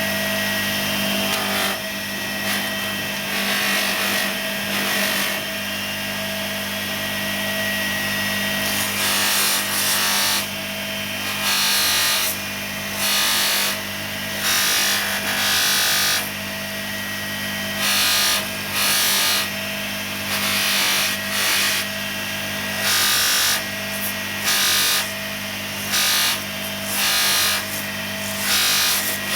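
Bench grinder running a polishing mop with a steady motor hum. A metal part is pressed against the spinning mop in repeated strokes, each bringing a surge of rushing, scrubbing noise, about one every second or two from about a third of the way in.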